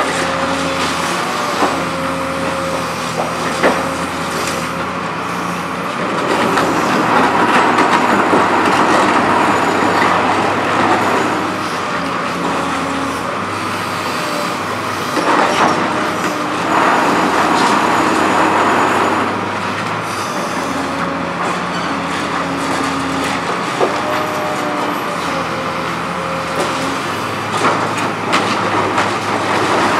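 Liebherr R954B high-reach demolition excavator working with its NPK concrete shear: the engine and hydraulics run steadily with a whine that shifts in pitch as the boom moves, over the crunch and clatter of concrete being broken and rubble falling, with a few sharp knocks.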